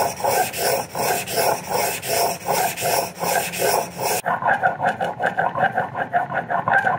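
A steel block plane blade being rubbed back and forth by hand on a water stone, sharpening its edge: a rhythmic scraping of about two strokes a second. About four seconds in the strokes turn quicker and shorter.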